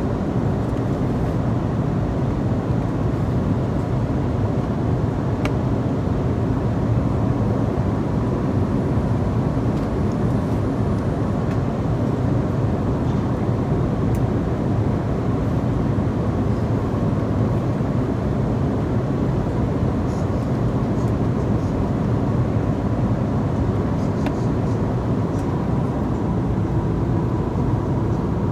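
Steady low rumble of an airliner's cabin in flight: engine and airflow noise, unchanging, with a faint high steady tone and a few faint ticks.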